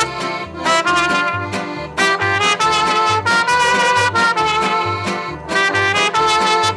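Mariachi band playing: a trumpet carries the melody in held notes over strummed guitars and a guitarrón's bass notes, which beat about twice a second.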